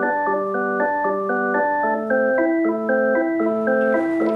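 Background music: a keyboard playing short repeated chords in a steady rhythm.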